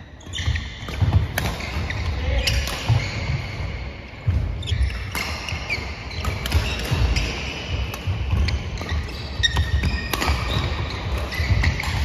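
Badminton doubles rally: sharp racket hits on the shuttlecock and quick footsteps thudding on a wooden sports-hall floor, with short shoe squeaks.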